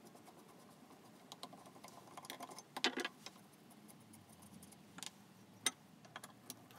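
Faint, scattered clicks and taps of a screwdriver working the brass knob and handle screws of a Stanley No. 8 jointer plane, with small metal parts being handled. A louder clatter comes about three seconds in, and a sharp click a little before the end.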